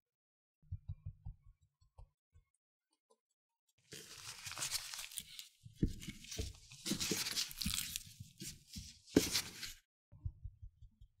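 Flour sifted through a small mesh strainer over pork slices, heard as soft, rapid low taps. From about four seconds in, a disposable-gloved hand turns and pats the floured pork in a stainless steel tray: the glove crinkles and rustles, with soft slaps of meat on the tray, the loudest just after nine seconds. The sifting taps return near the end.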